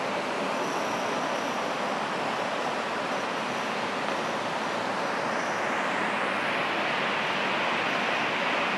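Steady hiss of room noise, a little louder and brighter from about six seconds in.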